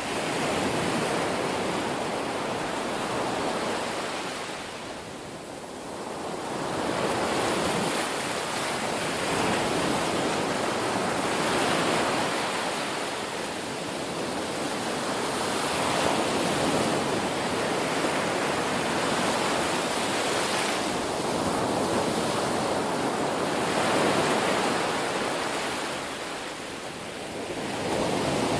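Ocean waves breaking and washing onto a shore, a continuous surf that swells and ebbs every few seconds.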